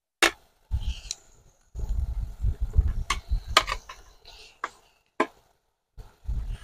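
Fried chicken pieces tipped and pushed off a plastic plate into a clay pot of thick masala: a series of sharp knocks and clicks as the plate taps the pot and the pieces drop in, with a low rumble through the middle.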